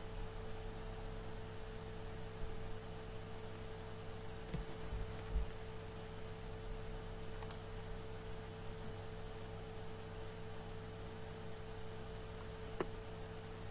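Steady electrical hum on the recording, with a few faint scattered clicks.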